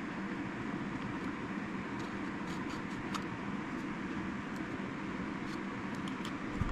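Steady background hum with faint, scattered small clicks of the plastic and metal parts of a Zebco 33 spincast reel being handled and fitted together.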